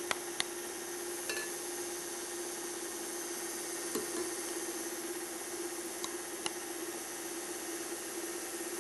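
KitchenAid stand mixer running with a steady hum as orange purée is spooned a little at a time into the whipped egg yolks. A spoon clicks lightly against the bowls a few times.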